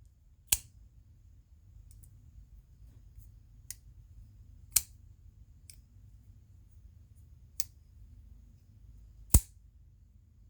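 Jungle Edge JL9393 titanium folding pocket knife worked open and shut by hand: about six sharp metallic clicks at uneven intervals as the blade is opened through the spidey hole and the lock is disengaged, with a few fainter ticks between them. The loudest snap comes near the end.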